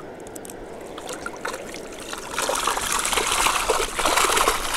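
Water streaming and splashing out of a wire-mesh keepnet as it is lifted out of shallow river water. It grows loud about two and a half seconds in.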